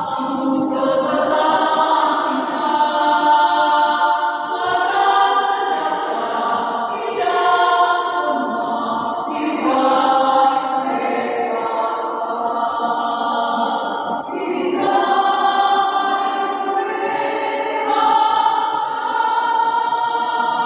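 A women's choir singing in several parts, in long sustained phrases.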